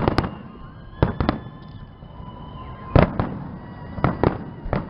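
Fireworks display: sharp bangs of bursting shells, many in quick pairs, about eight or nine in all, with a faint high whistle running between the bangs.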